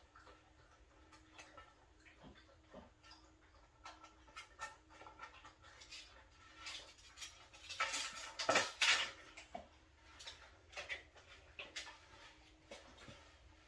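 Light scattered knocks and scrapes of a wooden trim board being handled and held up against a window frame, with a louder cluster about eight seconds in.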